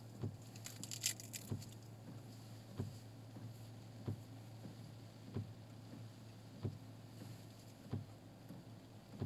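Steady low hum inside a vehicle, with a soft, regular thump about every second and a quarter and a short rustle about a second in.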